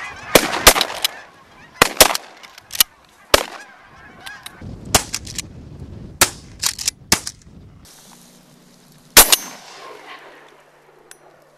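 A flock of geese honking overhead, thinning out after the first couple of seconds, while shotguns fire a ragged volley of a dozen or so blasts. The last loud blast comes about nine seconds in.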